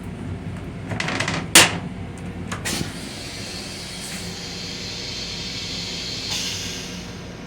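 Restroom fixtures in a Long Island Rail Road M7 railcar: a few clicks and a sharp knock about a second and a half in, then a steady hiss for a few seconds, over the train's low running rumble.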